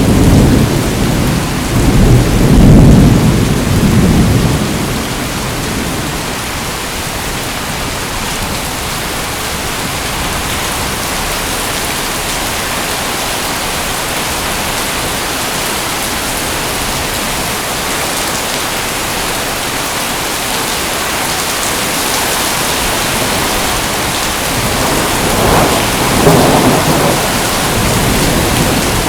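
Steady heavy rain falling, with a deep rumble of thunder rolling for the first few seconds and another, fainter one about 25 seconds in.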